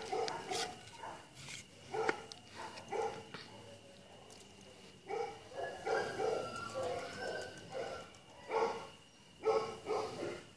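Siberian husky barking in short bursts, again and again, with a denser run of barks around the middle.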